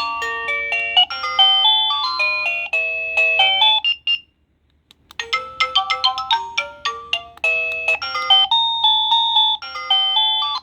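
Wireless doorbell receiver playing electronic chime melodies, one note after another. One tune cuts off about four seconds in, and after about a second of silence a different, quicker tune starts, as the receiver is switched to another of its ringtones.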